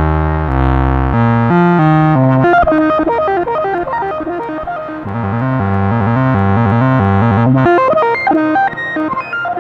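Eurorack modular synthesizer music: a sequenced bass line steps through notes under a busy run of quick, pitched melodic notes. About five seconds in, a new, steadier bass pattern comes in.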